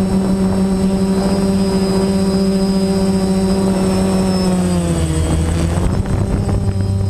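DJI Phantom quadcopter's electric motors and propellers, heard loud and close from the GoPro mounted on the drone: a steady whirring hum that briefly drops in pitch about five seconds in, then climbs back.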